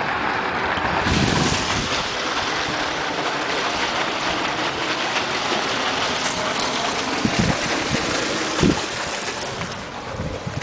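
Steady rush of water gushing from a solar tube well's outlet pipe and splashing onto a concrete floor, easing slightly near the end. A couple of brief low thumps come late on.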